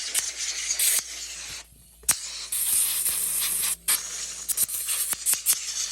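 Compressed air hissing from a blow gun in long blasts as dirt is blown off an RC car. The air cuts off briefly about a second and a half in and again for a moment near four seconds.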